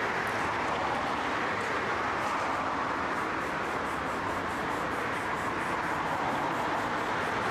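Steady rushing traffic noise with no single event standing out.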